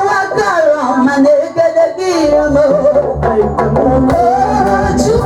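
Live gospel praise music: a sung melody with instrumental backing, a low bass line coming in about two seconds in, and drum hits.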